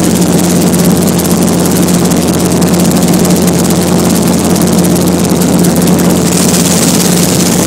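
An engine running steadily and loudly at constant speed, with an unchanging low hum and a fast, even flutter over a noisy rush.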